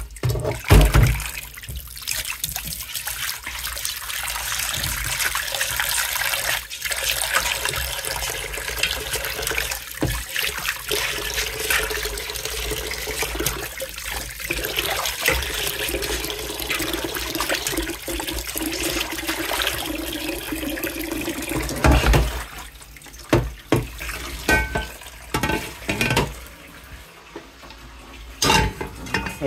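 Kitchen tap running into a black speckled cooking pot in a stainless steel sink while the pot is scrubbed out by hand with washing-up liquid. About twenty-two seconds in the water stops, and a few knocks and clatters follow as the pot is handled.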